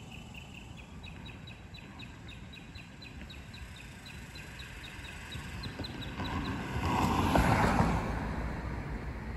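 Outdoor ambience with a small high chirp repeating about four times a second. About seven seconds in, a loud rush of noise swells up and then fades.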